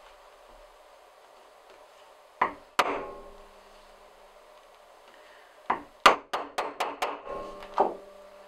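A plastic-headed mallet striking a steel leather punch to drive it through leather: two knocks, then a quick run of about eight blows some three seconds later, each with a short ring.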